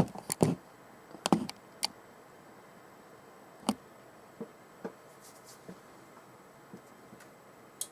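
A few light clicks and taps, clustered in the first two seconds and then spread out more thinly, over a faint steady hiss.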